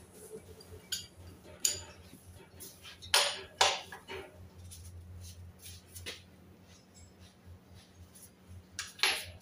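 Wrench clinking and knocking against the steering rack and subframe from underneath the car. The clinks are scattered and sharp, with the loudest pair about three seconds in and another near the end, over a steady low hum.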